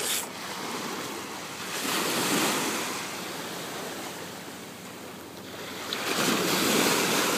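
Sea surf on a beach: waves breaking and washing in, swelling about two seconds in and again near the end.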